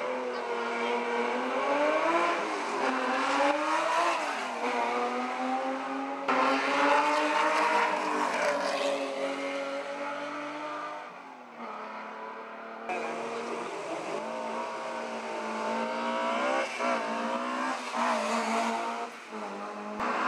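Rally cars' engines revving hard under full acceleration, the pitch climbing and then dropping at each gear change. The sound jumps abruptly twice as one car's run is cut to another's.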